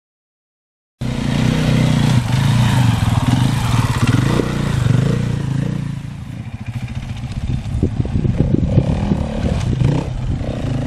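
Enduro motorcycle engine revving hard, cutting in about a second in. In the second half the engine note is choppier, with knocks and clatter.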